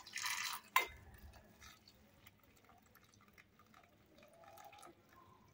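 Hot water poured from a saucepan into a bowl of ginger and rosemary, splashing loudly for under a second and ending in a light knock, then a thin, quiet trickle with faint drips.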